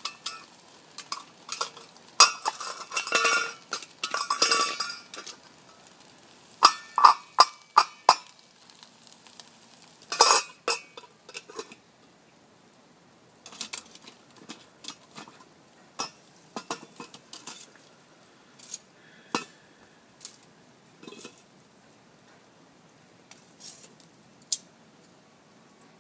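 Metal tongs clinking and scraping against a mess tin and its lid sitting on a bed of coals: irregular knocks and clinks, in busy clusters during the first dozen seconds, then sparser and fainter.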